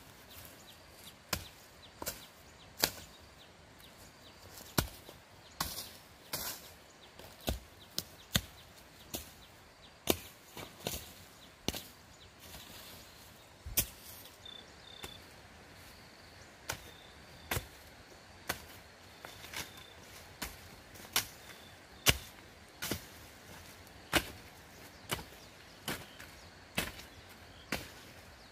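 A hand-held blade chopping and slashing through dry grass and weeds on the ground, in repeated sharp strokes at roughly one a second with uneven spacing.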